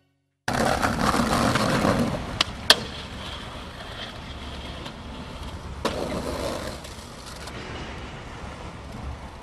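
Skateboard wheels rolling loudly on concrete, then two sharp clacks of the board about two and a half seconds in as it goes up onto a ledge. The trucks then scrape along the ledge, and a knock near six seconds marks the landing, followed by quieter rolling.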